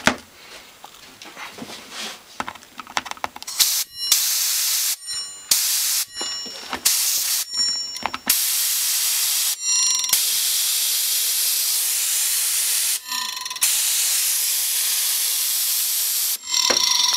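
Compressed air hissing at the platters of a Seagate hard drive to spin it up, first in a run of short blasts, then in long blasts. In the pauses and near the end, the spinning drive gives a whining, scraping tone: the owner takes it for the heads scraping on the disc, which he had scratched.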